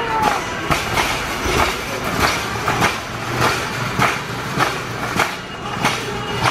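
Metal shopping carts rolling and rattling across a store floor, with a regular clack nearly twice a second.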